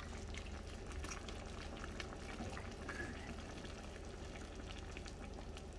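Pot of chicken cooking down on the stove, faintly bubbling and sizzling, over a steady low hum.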